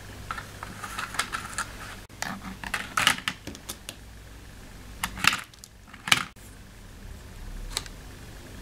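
Scattered light clicks and knocks of pens and markers being handled and set into a small boat-shaped holder made of wooden clothespins, the sharpest about three and six seconds in.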